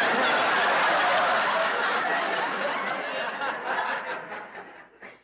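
Audience laughing at a punchline, loud at once, then dying away gradually over about five seconds.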